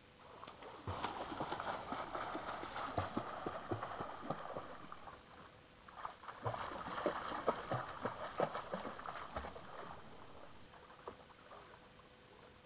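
Pool water splashing as a small child in a float kicks and paddles, a run of irregular slaps and splashes in two spells that dies down near the end.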